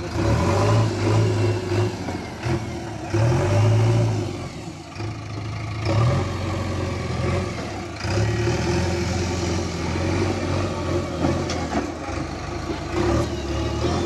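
Diesel engine of a JCB 3DX backhoe loader running under working load, its revs surging and easing as the loader bucket pushes soil and the machine drives back and forth. A few clunks come through over the engine.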